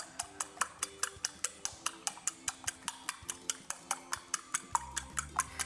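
A fork beating two eggs in a small ceramic bowl, clicking against the bowl's side in a quick, even rhythm of about six or seven strokes a second.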